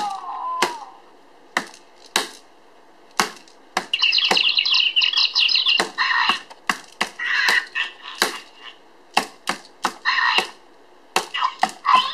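Toy mallet striking the sensor pads of an OOO3 iBase whack-a-mole game again and again: a string of sharp taps. Between strikes the base's speaker plays short recorded hit or miss sound effects, the longest about four seconds in.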